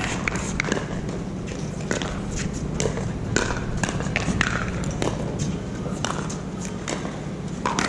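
Many irregular sharp pops of pickleball paddles striking plastic balls across neighbouring courts, with faint voices and a steady low hum underneath.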